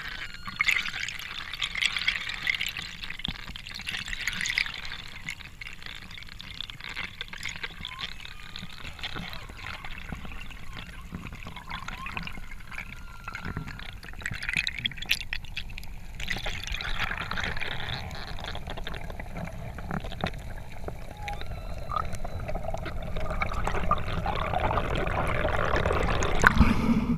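Underwater water noise heard through an action camera's housing: a steady rush and trickle of water moving past, with scattered clicks and wavering tones, growing louder toward the end as the diver nears the surface.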